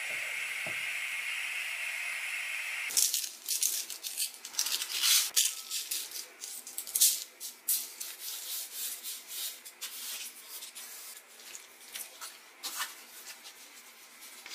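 A pot of porridge boiling under its lid with a steady hiss; about three seconds in this gives way to coarse salt being rubbed over whole yellow croakers on parchment paper, the grains and paper crackling and rattling irregularly, thinning out toward the end.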